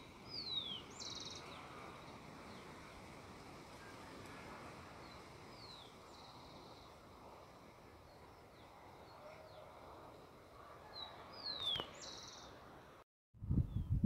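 A bird singing a short phrase three times, about every five or six seconds: a falling whistle followed by a short buzzy trill, over faint outdoor background. Near the end the sound cuts out briefly, then loud low rumbling bursts hit the microphone.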